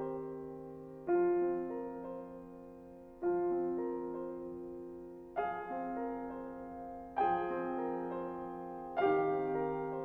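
Steinway Model D concert grand piano playing slow chords, a new chord struck about every two seconds and left to ring and fade before the next.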